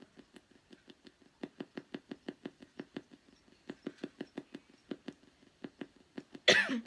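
Spirit box radio sweeping through stations, chopping the audio into a rapid even train of short clicks, about seven a second. Near the end a brief loud burst of sound cuts through the clicking.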